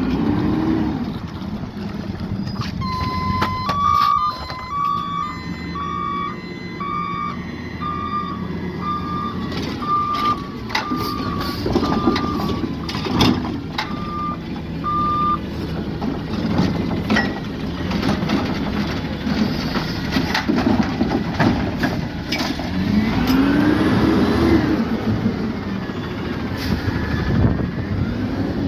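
Peterbilt 520 garbage truck with a Rapid Rail automated side-loader working a recycling pickup: the diesel engine runs and revs up twice, a backup alarm beeps about once a second for roughly twelve seconds, and sharp clanks and knocks come from the bin handling. Wind blows on the microphone.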